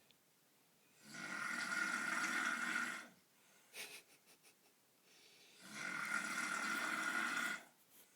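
A man snoring in his sleep: two long snores about four and a half seconds apart, each lasting about two seconds. A few brief faint breath sounds come between them.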